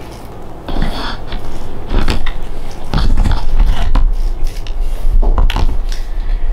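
Rubber glue eraser rubbed over a bow's leather grip to lift excess contact cement: irregular scuffs and clicks, with a heavier low rumble of handling from about halfway through.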